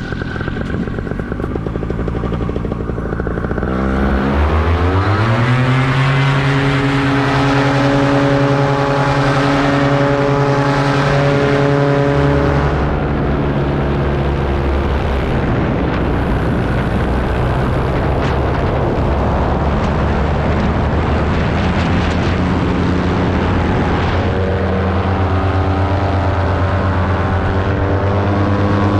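Paramotor engine and propeller running, revving up sharply about four seconds in and holding a steady high throttle, then easing back a little past twelve seconds and shifting pitch again near the end.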